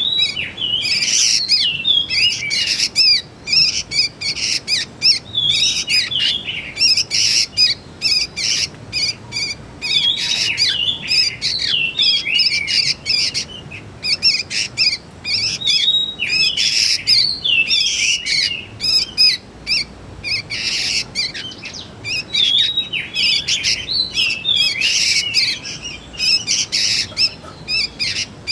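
Juvenile sooty-headed bulbuls calling: a quick, continuous chatter of short chirps and curved whistled notes with only brief pauses.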